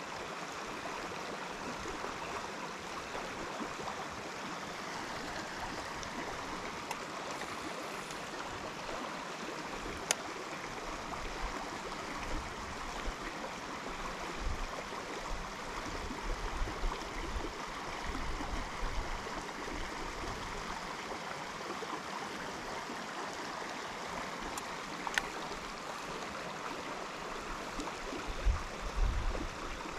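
Creek water running steadily in a full stream, an even rushing sound. A sharp click comes about ten seconds in, and a few low thumps come near the end.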